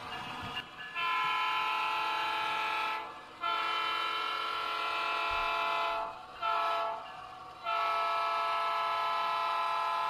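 Sound-decoder diesel horn of an HO scale CP GP38 model locomotive blowing a chord in the grade-crossing signal: long, long, short, long.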